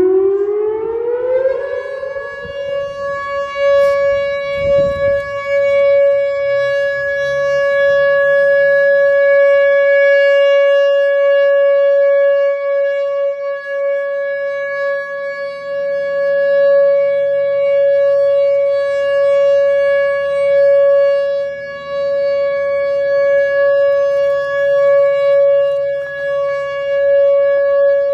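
Whelen Vortex R4 electronic outdoor warning siren sounding its steady Alert tone. It winds up in pitch over the first couple of seconds, then holds one steady, loud note. The loudness swells and fades every several seconds as the rotating head sweeps past.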